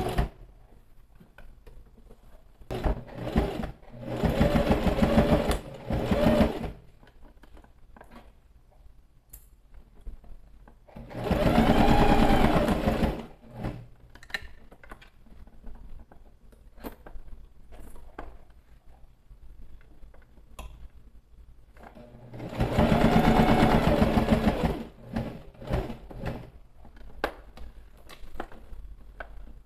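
Electric sewing machine topstitching, running in three short bursts of two to three seconds, its motor speeding up and slowing down each time, with pauses between while the fabric is turned along a curved seam. Small clicks of handling can be heard in the pauses.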